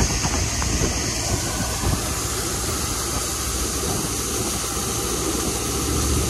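A ZMAJ 170RM combine harvester running steadily while its unloading auger pours shelled corn into a trailer: a low engine rumble with an even hiss over it.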